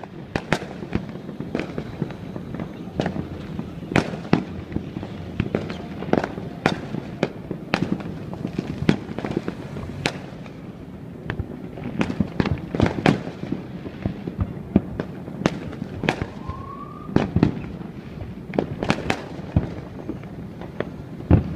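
New Year's fireworks going off: a steady string of sharp bangs and pops at irregular intervals, several a second at times, over a continuous low rumble and crackle.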